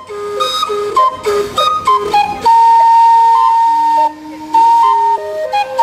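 Steam calliope playing a tune: whistle-like notes move in a melody, with a long held note in the middle. A hiss of steam runs under the notes from about a second in.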